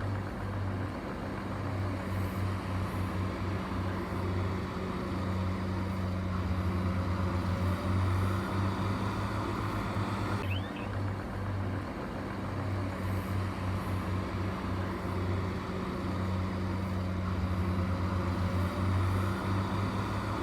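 Heavy construction machine's engine running steadily with a deep hum. The same stretch of sound starts over about ten seconds in.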